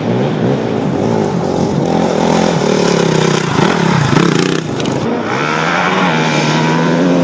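Dirt bike engine revving, its pitch rising and falling with the throttle. About five seconds in, the sound changes abruptly to a steadier engine note.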